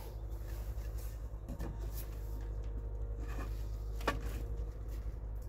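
Steady low rumble with one sharp tap about four seconds in, as a metal spirit level is set against a stone-veneer siding panel.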